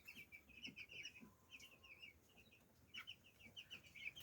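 A brood of two-week-old chicks peeping faintly, with many short high peeps overlapping and following one another.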